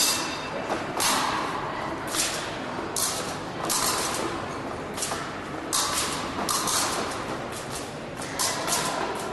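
Fencers' footwork on the piste during an épée bout: irregular stamps and scuffs, roughly one a second, over steady hall noise.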